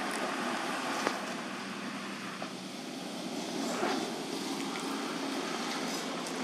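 Steady outdoor background noise, with a couple of faint clicks.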